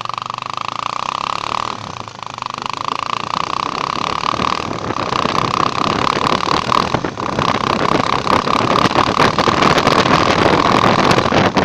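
Honda CBR motorcycle engine running through a temporarily modified exhaust, with a steady high hum over the engine noise, which grows louder from about two seconds in.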